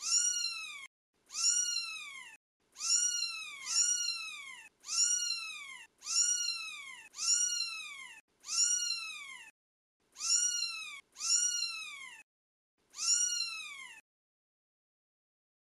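A twelve-day-old British Shorthair kitten meowing over and over, about ten high, thin calls roughly a second apart, each rising and then falling in pitch.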